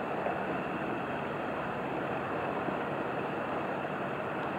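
Steady, even noise of passing river traffic: a vessel's engine mixed with the wash of water, with some wind on the microphone.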